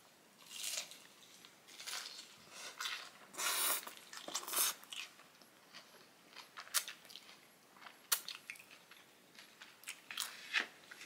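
A person biting into a crisp fried tostada and chewing it close to the microphone: irregular crunches, the loudest around three and a half and four and a half seconds in.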